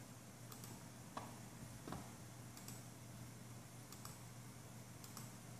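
Faint computer mouse clicks, about half a dozen scattered sharp clicks with two slightly louder ones about one and two seconds in, over a low steady hum.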